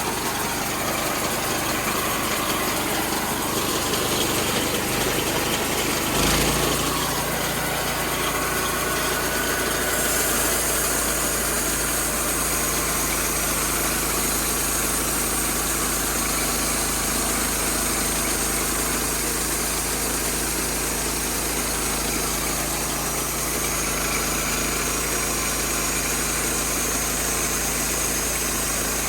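Homemade sawmill running steadily under power. A deeper steady hum sets in about six seconds in, and a higher hiss joins a few seconds later.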